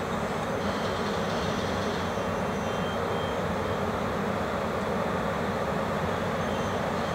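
BLS Re 4/4 electric locomotives rolling slowly past at close range: a steady mechanical drone with faint high whining tones that come and go.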